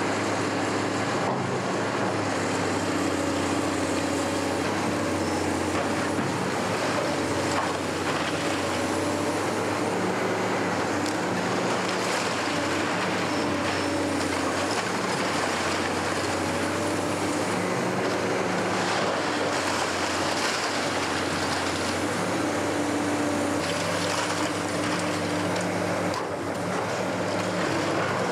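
Caterpillar hydraulic excavator's diesel engine running steadily under load while it demolishes a brick wall, the pitch rising and falling every few seconds as the arm works. Bricks and rubble clatter down now and then.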